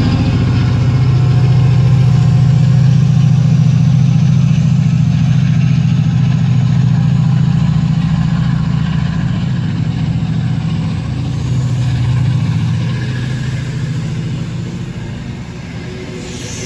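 Class 68 diesel-electric locomotive's Caterpillar V16 engine working hard as it pulls a train of Mk3 coaches away, a heavy steady drone with a faint rising whine above it. It fades over the last few seconds as the locomotive draws away and the coaches roll past.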